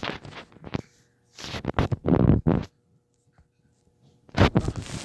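Scratchy rustling and rubbing handling noise in three bursts, the middle one about a second long, typical of a toy package or the recording phone being handled.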